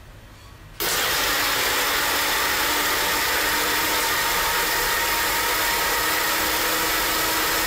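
Sunhouse countertop blender switched on about a second in, then running steadily at speed, grinding fruit, almonds and walnuts with water into a smoothie.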